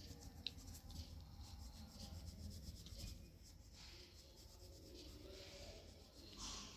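Faint scratching of a crayon rubbed back and forth on paper, colouring in a square.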